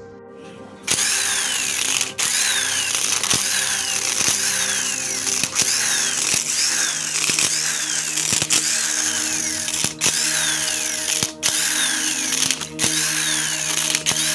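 Dongcheng electric impact wrench running on the head-plate bolts of a car AC compressor. It starts about a second in and runs in stretches of a second or two, with short breaks as it moves from bolt to bolt.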